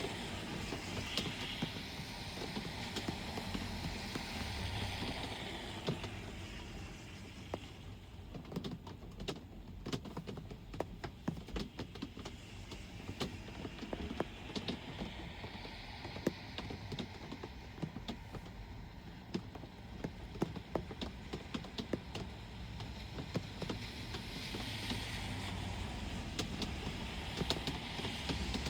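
Rain falling, with many sharp drips landing close by, over traffic noise. A vehicle passes on the wet road in the first few seconds, and another approaches near the end, each a swelling hiss of tyres with a low rumble.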